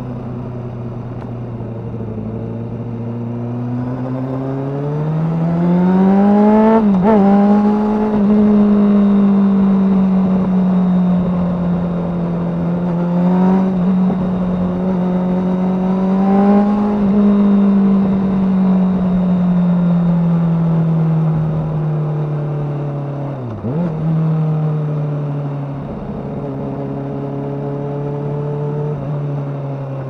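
2007 Kawasaki ZX-6R inline-four engine running through a Yoshimura undertail exhaust under way: the engine note climbs over a few seconds, holds high, then slowly eases back down, with a brief sharp dip in pitch about seven seconds in and another near the end.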